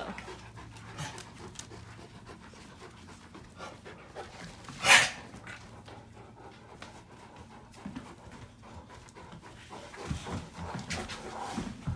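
Dogs panting while they play, with small scuffling ticks throughout and one short, loud sound about five seconds in.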